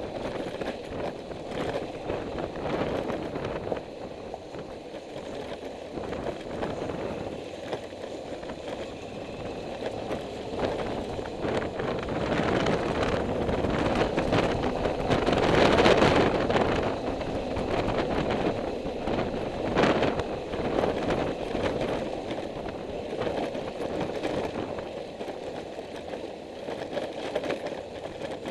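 Vehicle travelling along a road, a steady rush of road and wind noise that swells loudest about halfway through, with a sharp knock a few seconds later.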